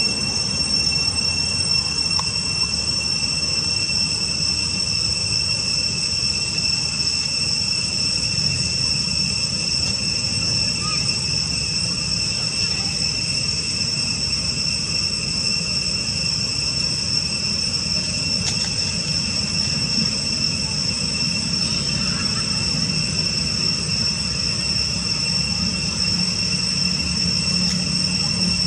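A steady, high-pitched insect drone over a low background rumble.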